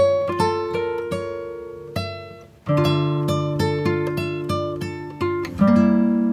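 Background music of plucked acoustic guitar: picked notes ringing and fading, with a short break about two and a half seconds in before the playing resumes.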